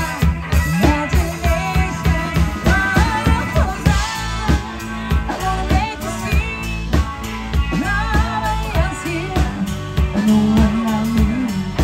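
Live band music with a steady drum beat and bass line under a wavering melody that the tagger takes for singing.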